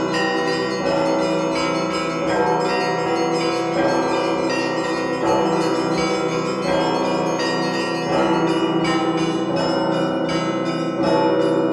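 Russian Orthodox church bells rung together, heard up close from the bell tier: many small bells chime rapidly over deeper bells that sound in a steady beat, with a heavier stroke about every one and a half seconds.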